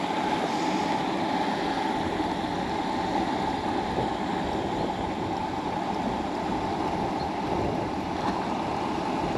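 Steady rush of flowing river water, an unbroken even noise.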